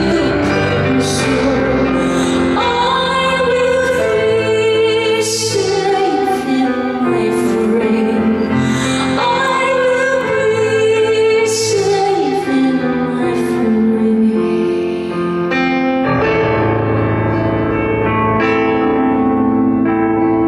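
A woman singing a slow song live, accompanied by her own piano playing, with long held notes and sliding vocal lines.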